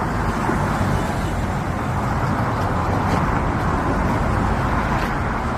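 A machine running steadily with a low, even rumble, plus a couple of faint clicks.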